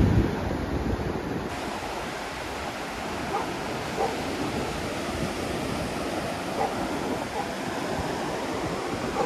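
Surf breaking and washing up a sandy beach, a steady rushing sound.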